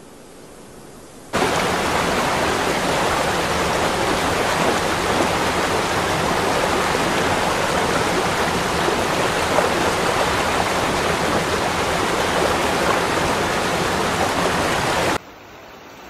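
Waterfall: a loud, steady rush of falling water that starts abruptly about a second in and cuts off abruptly near the end, with only a faint hiss before and after.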